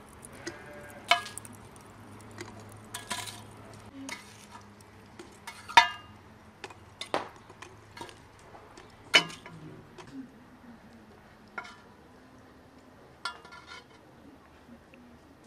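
Iron tongs clinking and scraping against a metal pan and a samovar while charcoal is fed into the samovar's chimney. The sharp metallic clinks come a second or two apart, each with a short ring, the loudest near the middle.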